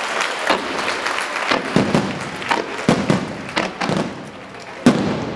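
Fireworks display: aerial shells bursting in a run of sharp bangs of uneven loudness, with a short lull and then the loudest single bang near the end.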